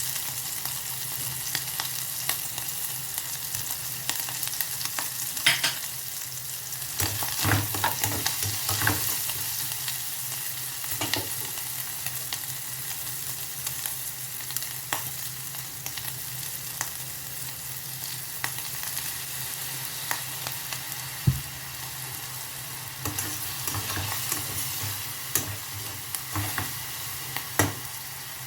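Broccoli, green beans and carrots sizzling in a frying pan as they are stirred, with a steady hiss and scattered knocks and scrapes of a utensil against the pan.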